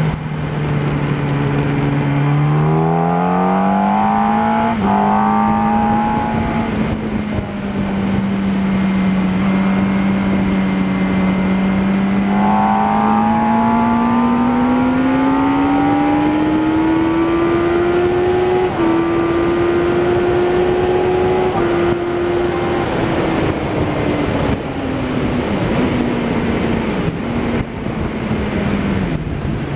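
Yamaha R1 inline-four engine heard onboard at speed over steady wind rush: the engine note rises, steps through a gear change about five seconds in, climbs steadily along the straight, then falls away over the last several seconds with small steps as the bike slows.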